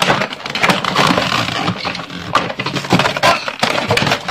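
Plastic toy packaging crinkling and crackling as it is handled, a dense run of small crackles and clicks.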